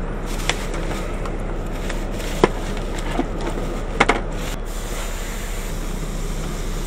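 Steady low hum inside a semi-truck cab, the parked truck's engine idling, with a few sharp clicks and knocks as things are handled in the cab, the last and loudest about four seconds in.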